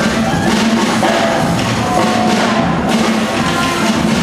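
Loud music with drums playing steadily.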